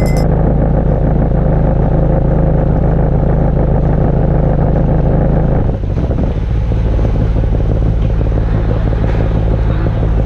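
A sailing yacht's engine running steadily under way, with a short dip and a slight change in its note about six seconds in.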